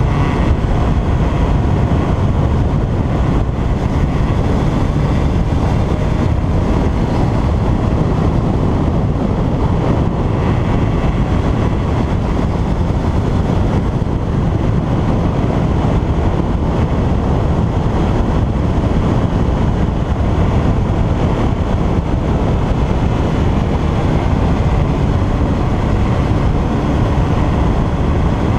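Motorcycle engine running at a steady mid-range speed while riding, under a constant rush of wind on the bike-mounted microphone.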